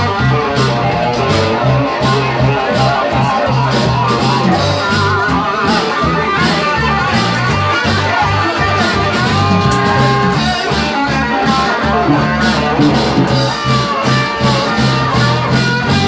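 A live band plays blues-rock: an electric guitar over a strummed acoustic guitar and a bass guitar's repeating low line. Some long held guitar notes come about two thirds of the way in.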